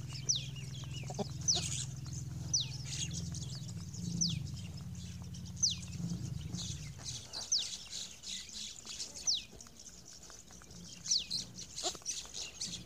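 A bird calling over and over, each call a thin whistle falling steeply in pitch, about once every second or so. Under it a low steady hum fades out about halfway through.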